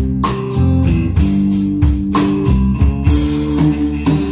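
Live blues-rock band playing an instrumental passage: electric guitars holding sustained notes over a drum kit with regular drum and cymbal hits.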